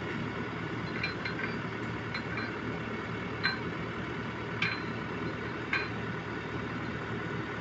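Hyundai 320 LC-7 excavator's diesel engine running steadily, with about six sharp metallic clinks spaced roughly a second apart, each ringing briefly.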